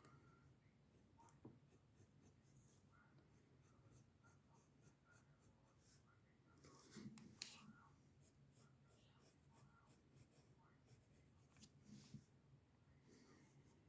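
Faint pencil strokes scratching on paper: many quick, short strokes in irregular runs, with a few firmer ones about seven seconds in.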